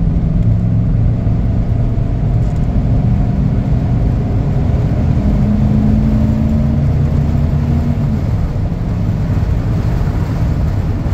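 Ford 302 V8 of a 1994 F-150 pulling hard under full-throttle kickdown, the automatic holding a lower gear as the truck accelerates from about 35 to 65 mph. It is heard from inside the cab.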